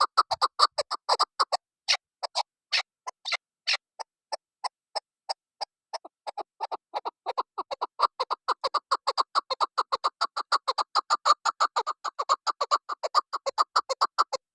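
Chukar partridge calling: a long run of short, sharp clucking notes repeated rapidly, slower and uneven with a few louder notes a couple of seconds in, then quickening into a fast steady series that stops suddenly near the end.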